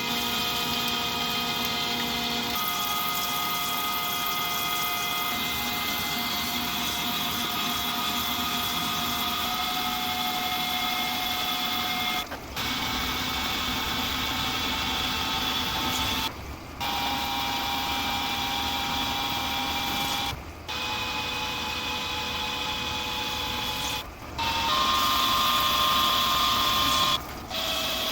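Metal lathe running, with a steady spindle and gearbox whine over machining noise as steel is turned. The sound breaks off briefly five times, and the whine changes pitch after each break.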